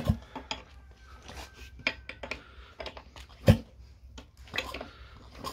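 Metal tool clinks and taps as a tubular socket wrench is fitted onto a nut at the crankshaft end of a scooter engine and turned, with a sharper metallic knock about three and a half seconds in.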